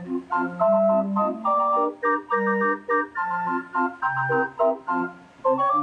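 Small band organ with brass pipes, housed in a red wheeled cabinet, playing a bouncy tune. A melody runs over bass notes that alternate with short chords in a steady oom-pah rhythm.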